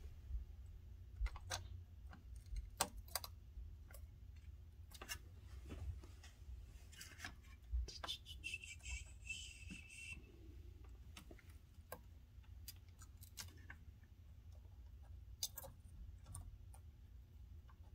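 Soldering iron and copper desoldering braid working solder off small circuit-board pads: scattered faint clicks and taps over a low steady hum, with a brief hiss about eight seconds in as the hot iron presses the braid.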